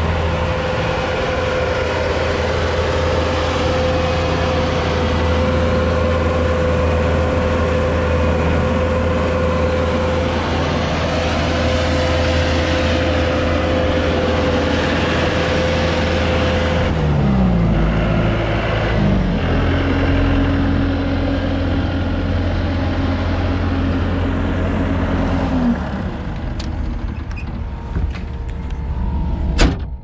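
Bobcat T300 compact track loader's diesel engine running steadily with a high whine above the engine hum. About two-thirds of the way through, the engine note dips and shifts to a different steady pitch. Near the end it grows quieter, with a few sharp clicks and a knock.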